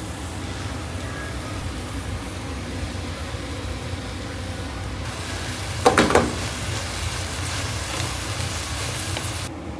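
Restaurant kitchen ambience: a steady low hum with a faint hiss behind it, and one short clatter about six seconds in.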